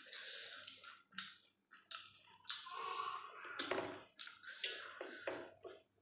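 Close-up eating sounds: chewing and wet mouth smacks in irregular bursts, with hand sounds as pieces of roti are torn and dipped into chicken kosha curry.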